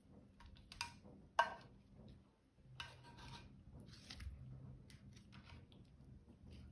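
Kitchen tongs turning roasted turkey wings in a glass baking dish: two sharp clicks in the first second and a half, the second the loudest, then soft scraping and shuffling as the pieces are moved.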